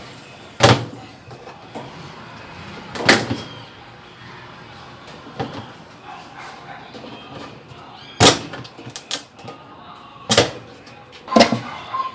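Sharp plastic knocks and clunks, five of them spaced irregularly, as the agitator of a Consul Maré Super top-loading washing machine is freed from its locking ring and worked loose off the drive shaft.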